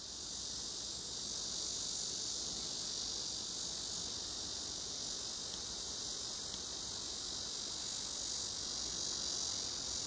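A noisy daytime chorus of singing grass insects, crickets and katydids, forming one steady, unbroken high-pitched buzz.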